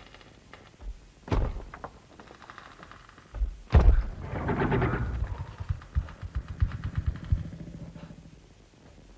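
Heavy thuds and bangs, the loudest about four seconds in, then a rapid run of clattering knocks that dies away near the end.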